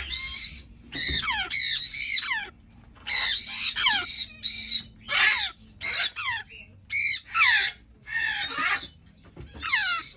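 Young African grey parrot chick making repeated harsh squawking calls, each sliding downward in pitch, in quick clusters with short pauses between them.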